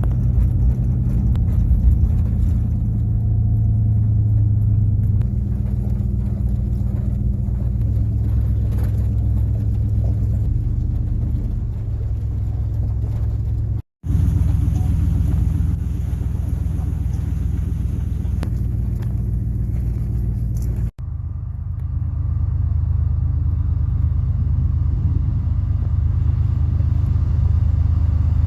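Vehicle engine and road rumble while driving, a steady low drone that drops out abruptly twice.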